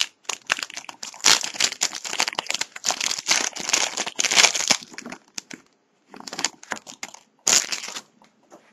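Foil wrapper of a trading-card pack crinkling as it is handled and opened, in dense bursts of rustling for about five seconds, then shorter bursts after a brief pause and one sharp crinkle near the end.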